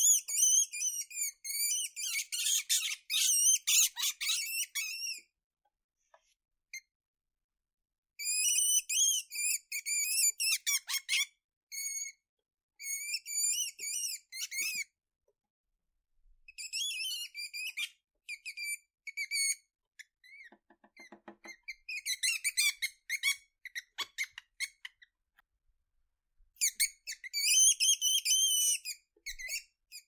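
Weasel squeaking: rapid runs of short, high-pitched squeaks in about six bursts of a few seconds each, separated by brief silences.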